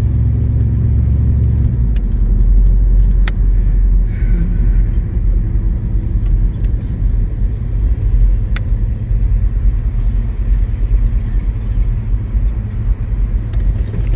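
Second-generation Chevrolet Camaro's engine running at low speed with a deep, steady rumble, its low tone shifting about two seconds in. A few sharp clicks sound over it.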